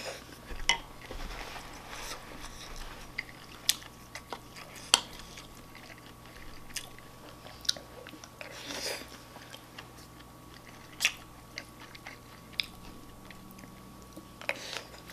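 Chewing of a mouthful of shrimp fried rice, with scattered sharp clicks and a few longer wet smacking noises.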